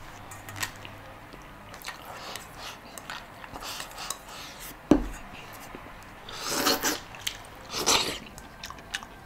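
Close-up eating sounds of someone chewing and sucking at braised soft-shell turtle, with scattered small clicks, a sharp knock about five seconds in, and two longer noisy smacks near the end.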